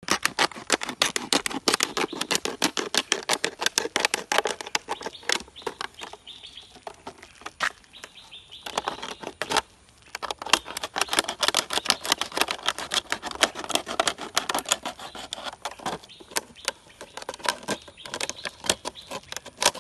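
Plastic bottles being cut: a dense, rapid run of crackling clicks from the plastic, with a few short pauses between cuts.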